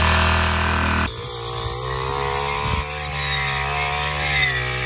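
Backpack brush cutter's small petrol engine running steadily at high speed; its sound changes abruptly about a second in.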